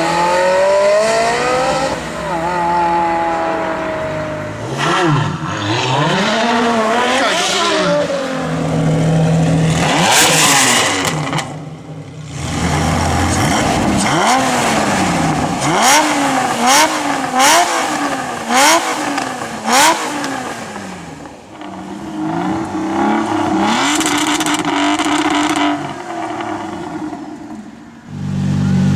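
Supercar engines revving and accelerating hard, pitch climbing and dropping repeatedly as they shift up through the gears. There are several sharp cracks from the exhaust in the middle of the run.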